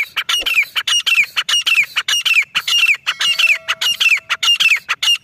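Female grey francolin (desi teetar) calling: a fast, loud series of short, shrill notes, each sliding down in pitch, about three a second.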